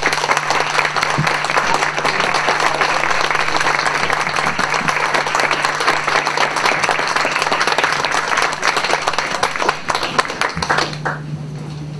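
An audience applauding, a dense, steady patter of many hands clapping that dies away about a second before the end.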